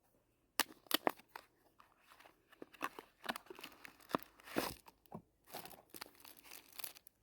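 A toy blind box's packaging being torn open and crinkled by hand: irregular sharp crackles and rustling, starting about half a second in.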